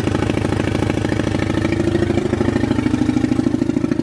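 Turbocharged Loncin pitbike's single-cylinder four-stroke engine idling steadily with a fast, even pulsing beat.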